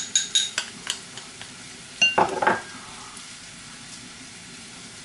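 A spoon clinking and tapping against dishes while spices are added to raw chicken for a marinade, several quick clinks, then a louder clatter and scrape about two seconds in, over a faint steady hiss.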